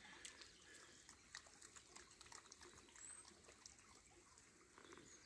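Near silence: the faint trickle of a shallow stream, with a few soft scattered splashes.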